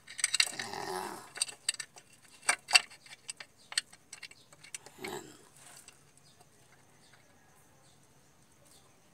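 Irregular metallic clicks and knocks of a clutch slave cylinder being worked by hand into place on a manual transmission's bellhousing, sharpest about two and a half to three seconds in and dying away after about five seconds.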